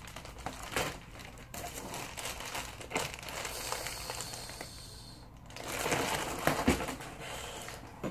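Plastic mailer bag crinkling and rustling in irregular crackles as it is handled and a book is drawn out of it. The rustling eases off for a moment about five seconds in, then picks up again.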